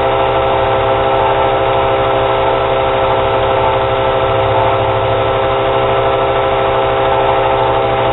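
Wilton square-wheel belt grinder running with a worn 120-grit belt, a steady hum with several steady tones, as a hardened steel knife blade is pressed against it, throwing sparks, to grind off heat-treat scale.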